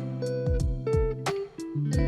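Background music: guitar with held notes over a steady drum beat.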